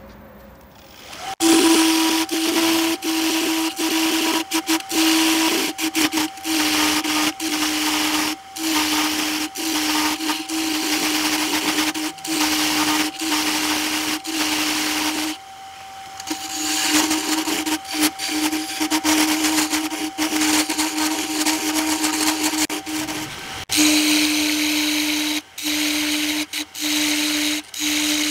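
Wood lathe running with a steady hum while a tool works the spinning walnut, giving a hissing cut. The sound breaks off briefly many times, with a longer pause about halfway through.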